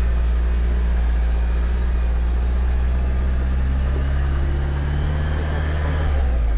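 Jeep Wrangler's engine running at steady low revs as the vehicle crawls up a dirt trail, a loud low drone that shifts slightly in pitch near the end.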